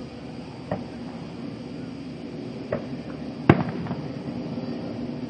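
Aerial firework shells bursting overhead: three sharp bangs, the loudest about three and a half seconds in and followed by a brief crackle, over steady background noise.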